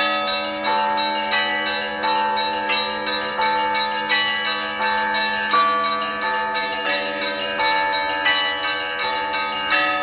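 Russian Orthodox church bells rung for a service in a rapid repeating pattern: a mid-sized bell struck about every two-thirds of a second, with smaller, higher bells chiming in between, over the long steady hum of a larger bell.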